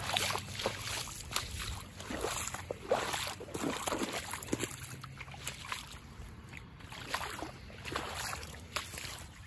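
Footsteps on waterlogged, muddy ground and wet grass, an uneven run of soft squishing steps with some brushing through dead grass.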